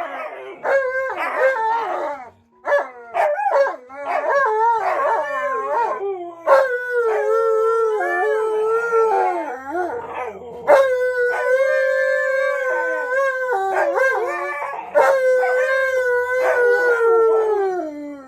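An Alaskan malamute and a Siberian husky howling and 'talking': short, broken yowls through the first few seconds, then long drawn-out howls, the last one sliding down in pitch near the end.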